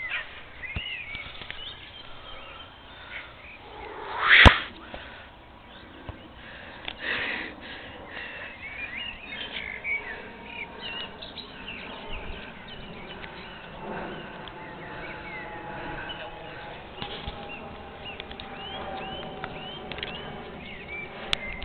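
Small birds chirping throughout, with one sharp thud of a football being kicked about four seconds in. A faint steady hum joins in the second half.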